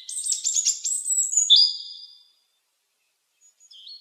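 Robin singing: a quick run of high, thin whistled notes that stops about two seconds in. A few faint notes follow near the end.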